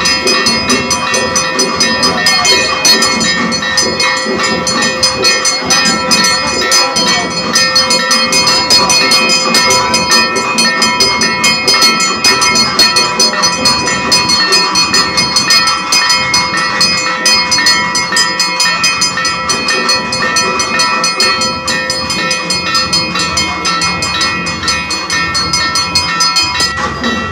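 Brass hand bell rung continuously during the puja and arati, with rapid, unbroken strikes and its clear ringing tones held over the clanging.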